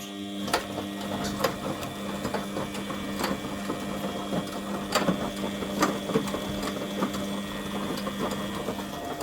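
Front-loading washing machine running its wash with the covers off: its AC drum motor gives a steady hum as it turns the drum through the belt. Irregular sharp clicks and knocks sound over the hum, the loudest about five and six seconds in.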